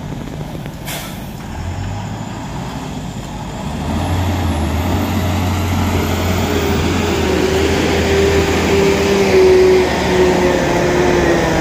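A vehicle engine running steadily, getting louder about four seconds in, with a whine that slowly drops in pitch near the end.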